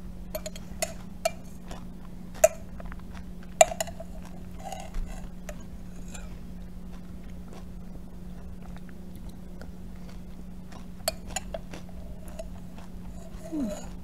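Metal spoon clinking and scraping against a glass cup while scooping smoothie, in scattered sharp taps with a short ring. The taps cluster in the first few seconds and come again near the end. A steady low hum runs underneath.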